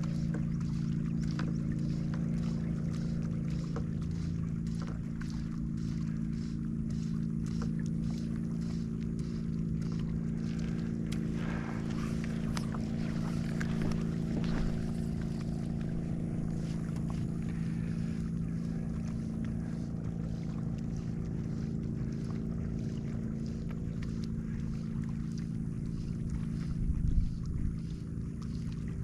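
A boat motor running steadily at a constant pitch, with light ticking over it and a single low thump near the end.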